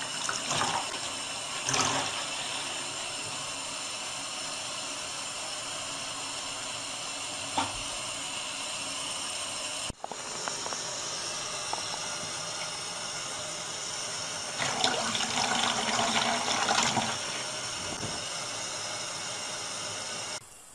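Water running from a tap in a steady stream into a sink. It drops out briefly about ten seconds in, then runs on, with a louder, splashier stretch for a couple of seconds past the middle.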